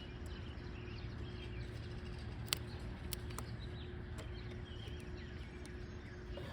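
Low steady background with one sharp click about two and a half seconds in and two lighter ticks soon after, as the positive battery cable clamp is fitted onto its terminal.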